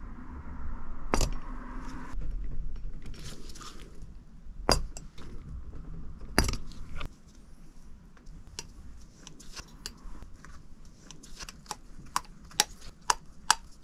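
Metal parts and hand tools clinking against an aluminium cylinder head while valve stem seals are fitted: a few sharp clicks, then a run of lighter ticks about twice a second near the end.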